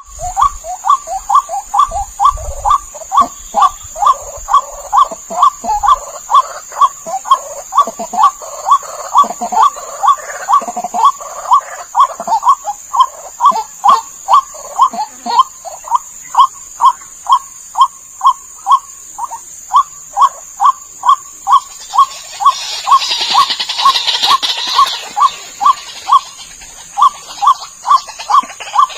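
White-breasted waterhen (ruak-ruak) giving its repeated call, about two notes a second without a break, as a lure recording. A thin steady high tone runs behind it, and a brief hiss swells up about three quarters of the way through.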